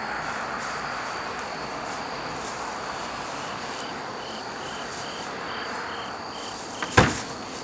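Steady trilling of crickets and other insects, joined midway by a short chirp repeating about three times a second for a few seconds. Near the end comes one sharp, loud hit.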